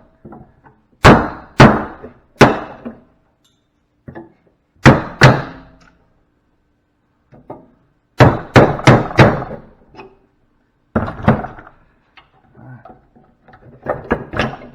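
Sharp hammer blows on a punch, knocking parts out of a large electrical fuse, struck in small irregular groups with short pauses between them.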